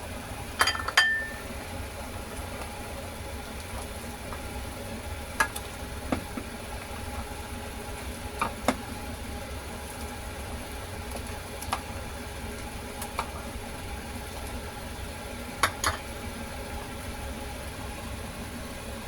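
Sharp knocks and clinks of kitchen utensils, singly and in pairs, every few seconds over a steady low hum; one clink near the start rings briefly.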